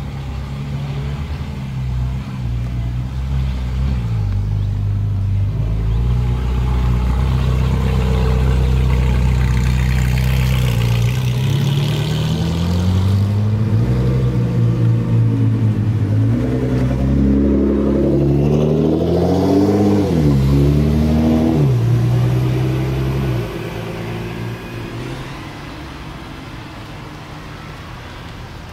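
Ferrari 458 Italia's naturally aspirated V8 running at low revs as the car rolls off. It is then revved several times in rising and falling sweeps as it pulls away. The engine fades out about 23 seconds in.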